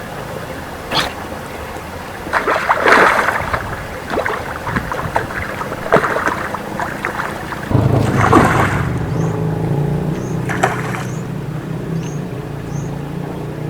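Water splashing in several loud bursts, with a low steady hum that starts about eight seconds in and short high chirps near the end.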